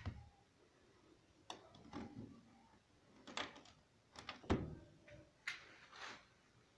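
A few scattered light clicks and knocks of handling, the loudest a single thump about four and a half seconds in.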